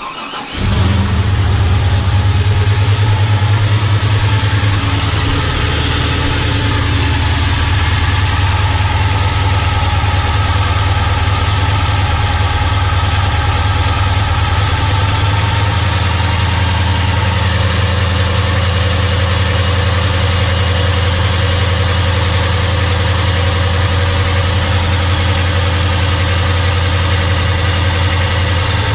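Holden Commodore engine idling steadily, with the clatter of its gear-driven camshaft drive running through it. The idle comes in abruptly about half a second in. The engine has been freshly restarted after a long lay-up and has not yet warmed up or been tuned.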